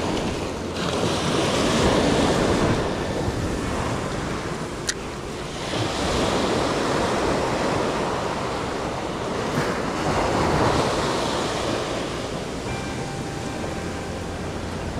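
Ocean surf breaking and washing up a sandy beach, swelling and easing every few seconds, with wind rumbling on the microphone. A single sharp click about five seconds in.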